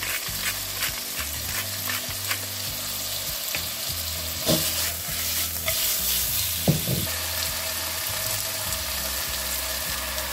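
Chicken breast strips sizzling in olive oil in a nonstick frying pan, stirred with a wooden spoon. There are scattered light clicks and a couple of louder knocks, about four and a half and almost seven seconds in.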